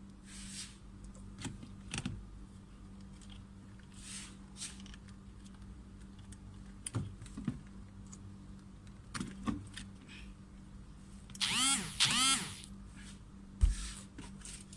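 Clicks, taps and rustles of hands and tools working on a car's power window switch panel, over a faint steady hum. Late on comes a short squeak that rises in pitch, then a dull thump.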